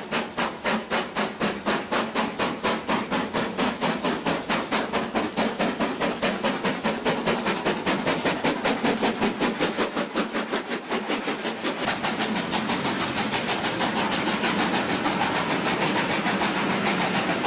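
BR Standard Class 4 2-6-4 tank locomotive No. 80079 working a train under steam, its chimney exhaust beating rapidly and evenly, about five beats a second and quickening. In the later part the beats blur into a steadier rush as the train passes.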